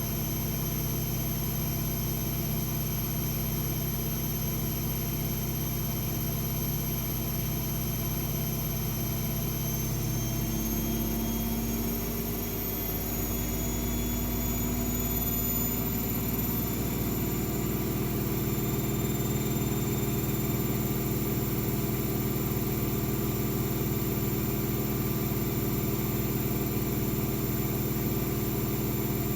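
AEG Lavamat W 1450 washing machine spinning a load of towels. Its motor whine rises in pitch about ten seconds in as the drum speeds up, then holds steady at the higher speed from about seventeen seconds on.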